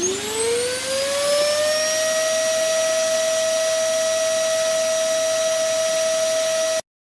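A machine spinning up: a whine rises over about two seconds to a steady high pitch over a rushing hiss, holds steady, then cuts off suddenly near the end.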